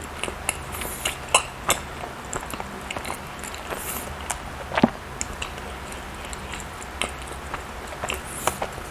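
Close-miked mouth sounds of someone chewing soft food: wet smacks and clicks at irregular intervals, with one louder smack just under five seconds in.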